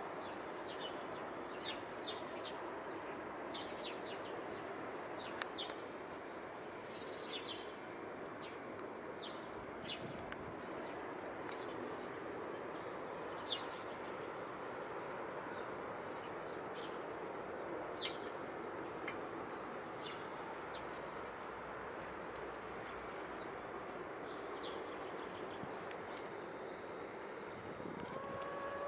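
Birds chirping in short, scattered high calls over a steady background hiss, with a hen giving a call near the end.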